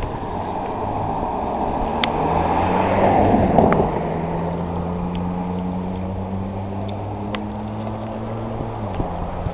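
A motor engine running with a steady low hum whose pitch drifts a little, growing louder for a moment about three to four seconds in, with a few faint ticks over it.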